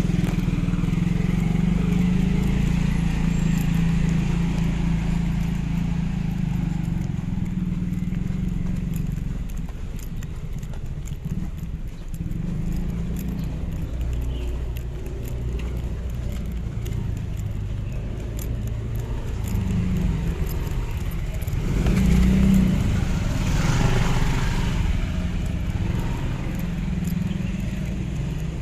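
Footsteps walking along a narrow concrete alley, with the low engine hum of a motor scooter moving slowly ahead through the first several seconds. General street noise swells briefly about twenty-two seconds in.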